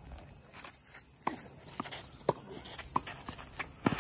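Tennis ball struck back and forth in a doubles rally: sharp pops of racket hits and ball bounces about every half second, starting about a second in, over a steady high drone of insects.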